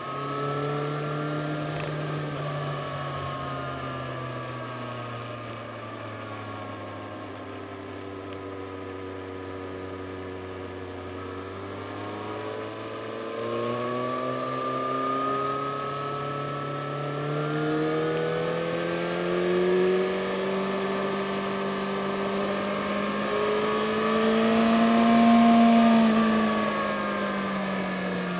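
Yamaha Fazer FZ6 S2's 600 cc inline-four engine under way. Its note sinks slowly over the first several seconds, holds low, then climbs steadily for about fifteen seconds as the bike pulls harder, peaking and falling away again near the end.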